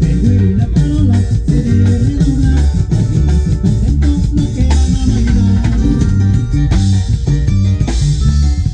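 Music from a band playing with a steady beat, a heavy bass line, drums and plucked strings.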